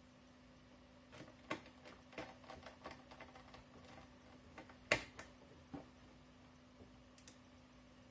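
Light clicks and taps of small parts being handled while a laptop screen panel is fitted and screwed into its lid frame: a quick run of clicks over a few seconds, then one sharper click about five seconds in. A faint steady hum runs underneath.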